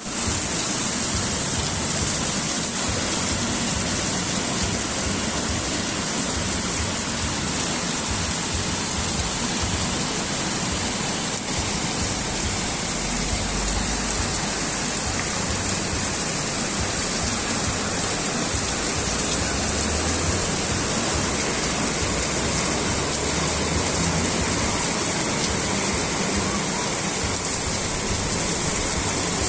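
Rain falling steadily, an even, unbroken hiss with a faint low rumble now and then.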